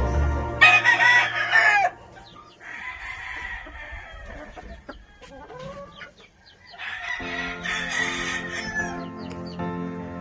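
Gamefowl roosters crowing: a loud close crow with a falling end about a second in, then fainter crows from other roosters, one of them near the end.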